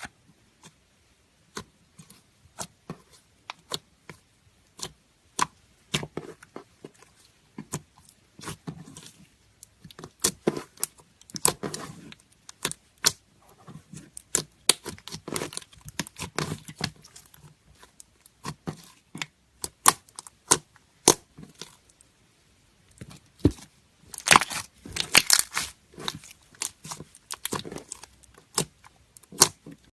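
Slime being squished and stretched by hand, giving irregular sticky clicks, pops and crackles that come thicker in a few busy stretches.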